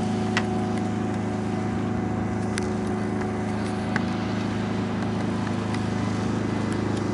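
A steady, even engine-like drone that does not rise or fall, with a few faint clicks over it.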